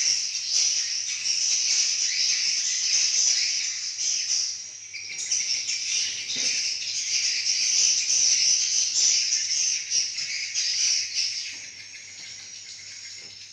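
A roost of swiftlets twittering together, a dense high chatter that dips briefly about five seconds in and fades near the end. This is the swiftlets' roosting call (suara inap), the sound of birds settling in for the night.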